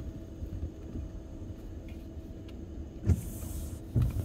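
Steady low rumble of a car inside the cabin as it creeps forward at idle. About three seconds in, a brief swish and a thump, then another thump a second later, as the windshield wiper sweeps across the glass.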